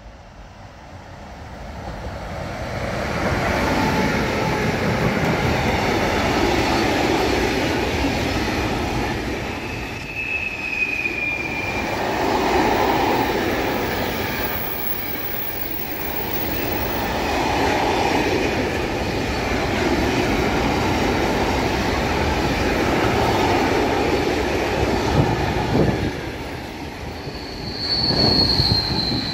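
Freight train of covered hopper wagons passing close by on a curve: steady rolling noise of wheels on rails that grows over the first few seconds as the train nears, then swells and eases in waves as the wagons go by. Brief high squeals about ten seconds in and again near the end.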